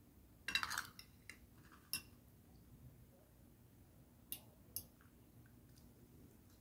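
A metal spoon clinking and scraping on a plate while eating: a short cluster of light clinks about half a second in, a few single clicks over the next second and a half, and two more clinks a little after four seconds, with quiet in between.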